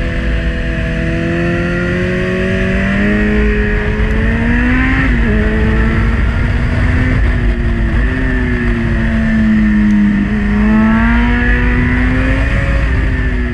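Kawasaki Z900's inline-four engine pulling through the bends, its pitch climbing and falling with the throttle, with a sharp drop about five seconds in and another dip about ten seconds in. Steady wind rush on a helmet-mounted microphone underneath.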